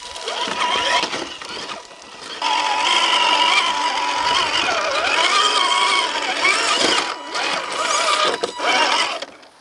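Electric motor and geared drivetrain of a 1/8-scale Traction Hobby Founder 2 RC crawler whining as it crawls over rocks, the pitch rising and falling with the throttle. Quieter at first, louder from about two and a half seconds in, with a couple of brief let-offs near the end.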